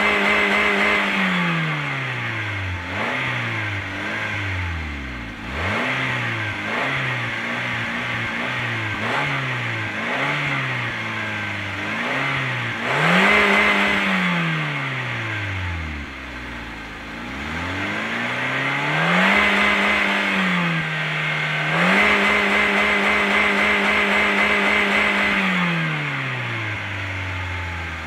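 Car engine revved hard, heard at the exhaust tailpipe: a run of quick blips that rise and fall between idle and high revs, then long stretches held flat at the top of the rev range against the rev limiter, dropping back down in between.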